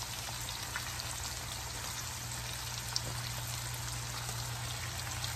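Food frying in oil in a wok: a steady sizzle with scattered small crackles as soaked rice vermicelli is dropped in on top of the shrimp, egg and onion, over a low steady hum.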